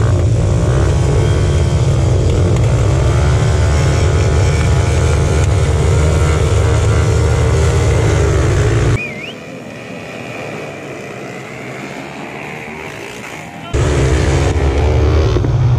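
Several motorcycle engines revving at a motocross starting line, their pitch wavering as the throttles are blipped. About nine seconds in, the sound drops suddenly to a much quieter mix, then engine noise cuts back in loud near the end as the bike is ridden on the track.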